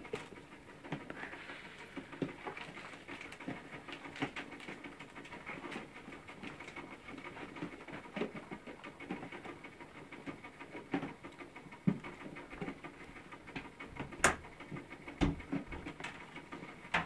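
Litter of Curly Coated Retriever puppies eating from plastic feeding bowls: chewing and lapping with many small clicks and knocks as muzzles and paws hit the bowls, and a few sharper knocks in the last few seconds.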